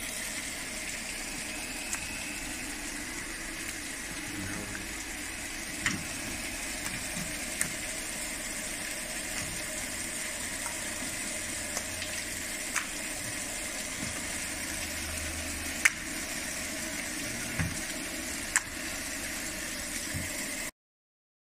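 Baader 189 cod filleting machine running: a steady mechanical hiss with a faint high whine, broken by a scattering of sharp clicks. The sound cuts off suddenly near the end.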